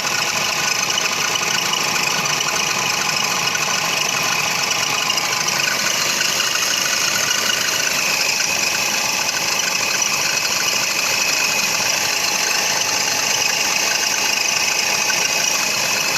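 Toyota Funcargo engine idling steadily with the alternator drive belt squeaking.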